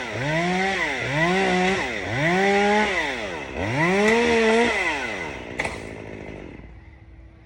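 Chainsaw engine revving in repeated surges, about one a second, each rising in pitch and dropping back. It then winds down and fades out about six seconds in, with one sharp click just before.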